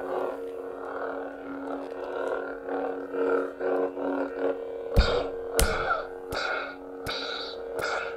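Proffie-board lightsaber hilt (89 Sabers / Korbanth MPP 2.5) playing its sound font through the hilt speaker: a steady low electric hum that swells and dips as the hilt is moved, then from about five seconds in a string of five sharp clash effects, roughly one every two-thirds of a second.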